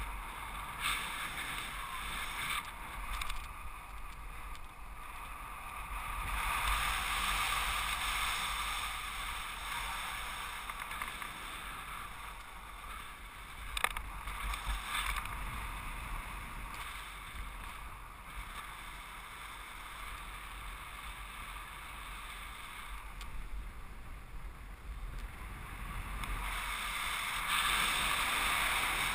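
Wind rushing over the microphone of a paraglider pilot's harness-mounted camera in flight, a steady hiss that swells louder twice, with one sharp click partway through.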